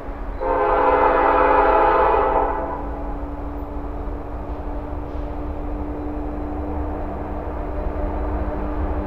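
Approaching train's horn sounding one long blast of about two seconds, a chord of several tones, followed by a steady low rumble as the train draws nearer.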